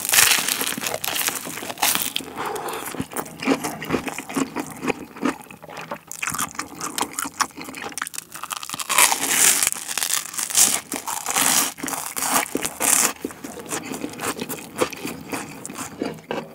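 Close-miked eating sounds: bites into crispy toast topped with sausage, then steady crunchy, crackly chewing, with the loudest crunches at the very start and again past the middle.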